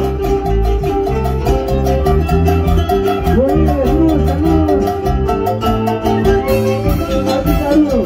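A live Cusco folk band playing: harp and a sliding, ornamented melody line over electric bass and drums, with a steady beat.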